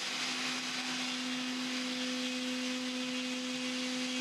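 Genmitsu 4040 Reno CNC router's spindle running steadily as its bit mills a mortise into a pine board, a steady hum over an even rushing noise. A second, higher steady tone joins about a second in.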